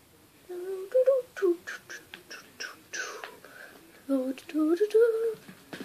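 A young girl's voice making wordless sounds: short sung notes that slide up and down, mixed with a quick run of sharp clicking mouth sounds in the middle, like beatboxing.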